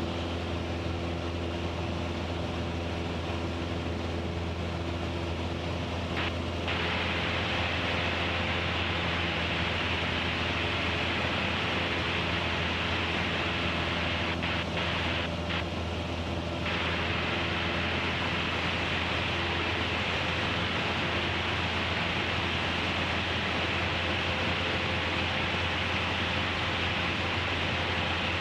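Steady drone of a high-wing light aircraft's piston engine and propeller in cruise, heard inside the cabin: a constant low hum with a broad hiss of air noise over it. The higher hiss dips slightly for a few seconds near the start and again about halfway through.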